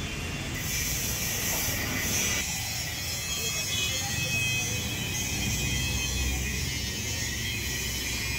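Steady mechanical background noise: a low hum with a high whine and hiss over it, no single event standing out.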